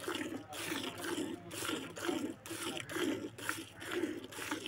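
A cow being milked by hand: regular squirts of milk from the teats hissing into a bucket of frothy milk, about two squirts a second.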